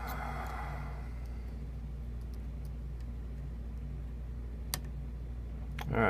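Faint, scattered clicks of a lock pick working the pin tumblers of a 6-pin First Watch lock held under a tension wrench, over a steady low hum.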